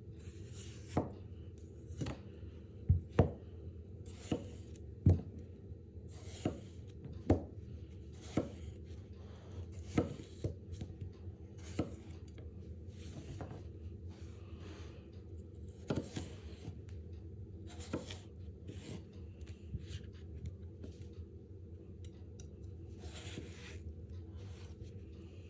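A 210 mm Japanese gyuto knife slicing a raw red potato on a wooden cutting board. Each cut ends in a sharp knock of the blade on the board, about one a second at first and thinning out in the second half, with soft slicing scrapes between.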